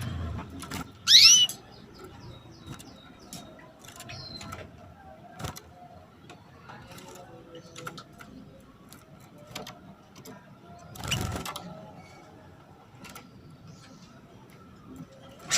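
Female domestic canary giving a sharp rising 'cuit' call, a female calling to a male, about a second in. Small scattered clicks follow, with another, fainter burst about two-thirds of the way through.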